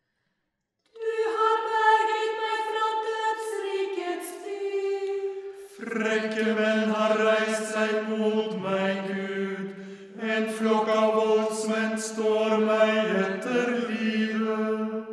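Unaccompanied choir chanting a liturgical antiphon in Norwegian, starting about a second in. A single higher voice begins, and lower voices join about five seconds later, with a short breath-break partway through.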